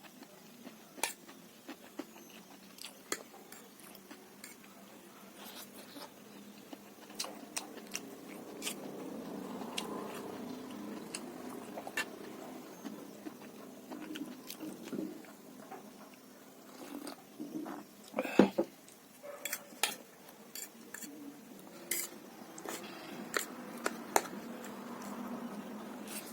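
Close-up eating sounds: chewing and biting noodles and soup, with scattered sharp clicks of cutlery against dishes, the loudest about 18 seconds in.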